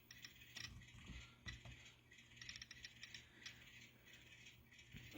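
Faint clicking and rattling of an N-scale model train moving on the track, with a quick run of small ticks about two and a half seconds in.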